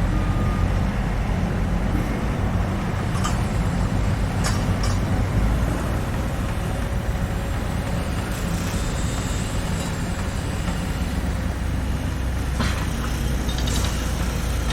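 Heavy construction machinery running with a steady low engine rumble. A few sharp knocks and clicks are scattered through it, with a cluster near the end.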